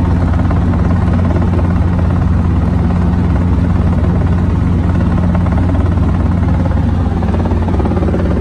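Helicopter in flight heard from inside the cabin: steady rotor and engine noise with a strong low hum that holds level throughout.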